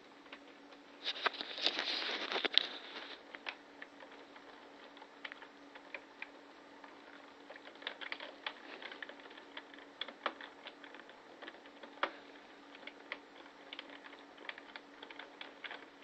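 Typing on a computer keyboard: irregular key clicks throughout, with a louder, denser burst of sound from about one to three seconds in. A faint steady hum lies underneath.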